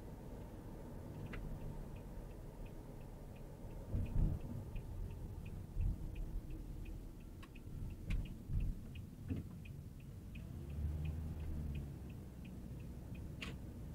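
Car turn-signal indicator ticking steadily, about three ticks a second, over the low rumble of the car driving, with a few low thumps and sharp clicks; the ticking stops near the end.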